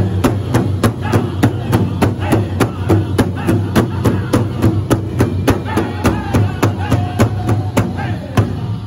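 A powwow drum group singing together while striking one large shared hand drum with drumsticks in a fast, steady beat. About six seconds in, the voices hold one long note over the drumming.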